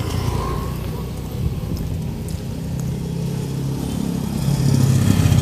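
Motor scooter engine running as it rides along the street towards the microphone, its low hum growing louder near the end.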